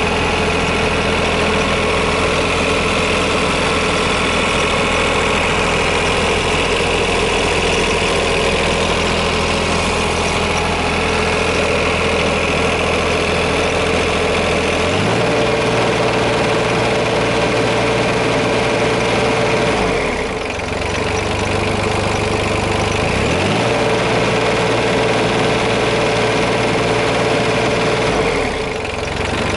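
Yanmar VIO20-1 mini excavator's diesel engine running steadily at idle, then stepping up to a higher engine speed about halfway through, with two brief dips in speed later on.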